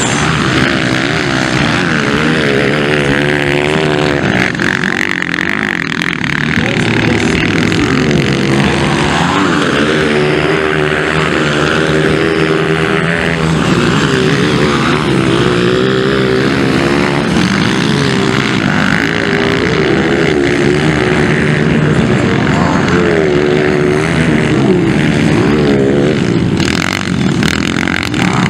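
Several 230 cc motocross bikes racing past, their engines revving up and down over and over as the riders work the throttle through the track.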